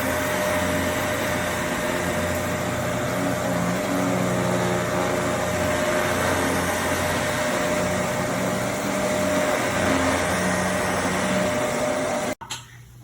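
Upright vacuum cleaner running steadily, its motor giving a constant whine over a loud rushing hiss. It cuts off abruptly about twelve seconds in, leaving faint room sound and a few clicks.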